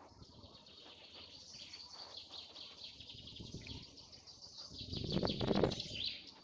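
Meadow ambience: high-pitched chirping and trilling of birds and insects runs on steadily in the background. About five seconds in there is a louder spell of low, rough noise.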